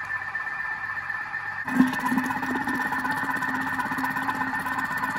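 Thermomix mixer-cooker running with its blade turning in reverse through mince for a bolognese sauce, a steady whine. About two seconds in there is a knock, and a lower hum joins the whine.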